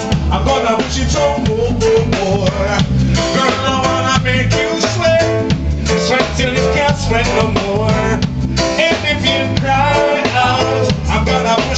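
Live band music: a male singer with a handheld microphone over keyboard, bass guitar and drum kit, with a steady bass line throughout.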